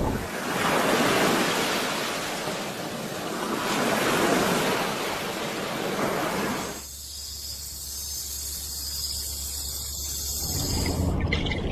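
Sea surf: waves washing ashore as a rushing hiss that swells twice. About seven seconds in it changes abruptly to a quieter steady hiss over a low hum, and the fuller rush returns near the end.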